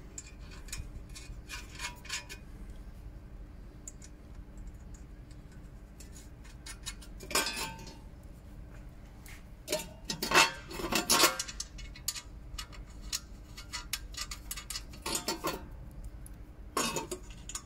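Metal windage tray clinking and scraping against its mounting bolts and nuts as it is fitted by hand: a scatter of light metallic clicks, with several louder clatters through the middle and near the end.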